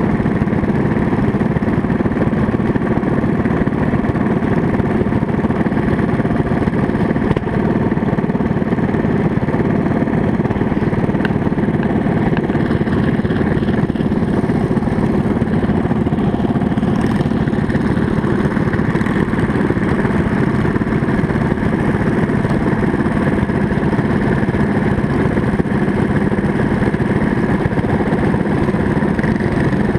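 Small engines of motorized drift trikes idling steadily.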